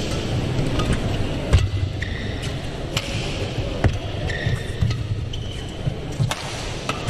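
Badminton rally: sharp racket strikes on the shuttlecock about every one to two seconds, the hardest about a second and a half in, with short squeaks of shoes on the court mat over the hum of the hall.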